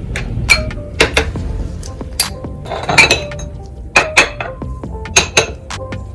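About a dozen sharp, irregular clinks of hard objects, each with a brief ringing tone, over a steady low hum.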